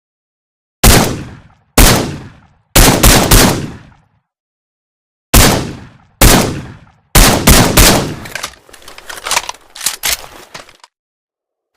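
Suppressed shots from a Heckler & Koch SL8 semi-automatic rifle: single shots about a second apart, then quicker groups of two or three. Each shot cuts in sharply and dies away quickly, with smaller, quieter clattering hits near the end.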